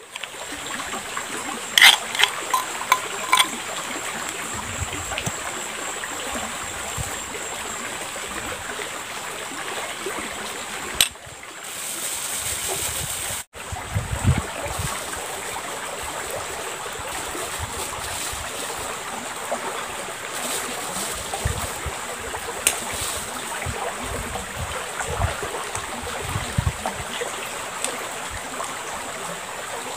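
Shallow river flowing steadily, with a few light clicks about two to three seconds in. The sound briefly drops out twice near the middle.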